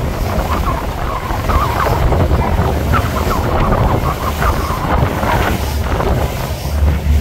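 Wind buffeting the microphone over the rush of churned water in a moving boat's wake, with a steady low rumble.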